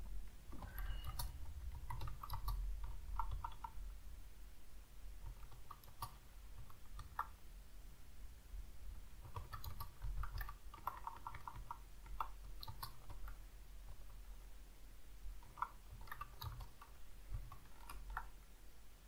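Computer keyboard being typed on in about four short bursts of key clicks with pauses between, over a low steady hum.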